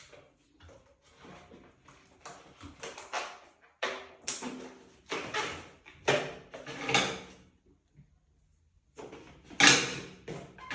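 Latex 260 modelling balloons rubbing and squeaking in the hands as they are twisted and tied, in three spells of scraping with a short pause between the last two.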